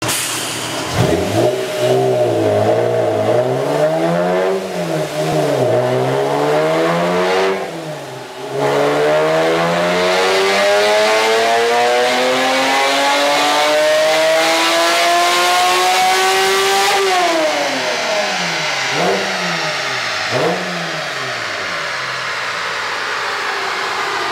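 Supercharged Acura NSX V6 with a Pride aftermarket exhaust on a dyno. It gives a few quick throttle blips, then a full-throttle pull that climbs steadily in pitch for about eight seconds before the throttle snaps shut. Two more short revs follow, then it settles to idle.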